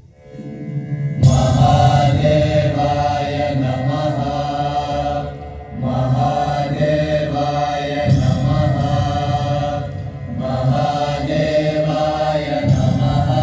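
A group of voices chanting a mantra over music. It comes in sharply about a second in and runs in long phrases, with short breaks about six and ten seconds in.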